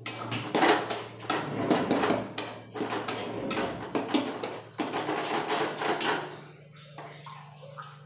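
Metal spoon clattering and scraping against a steel pan and a steel jar while stirring masala. It is a busy run of quick knocks that stops about six seconds in.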